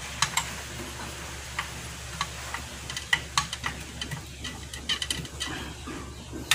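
Light, irregular metal clicks and taps as a long screwdriver turns a screw on a portable butane stove's burner assembly, over a steady low hum.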